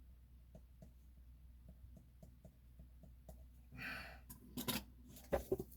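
Faint handling noises in a small room: a short rustle a little under four seconds in, then a few sharp clicks and knocks.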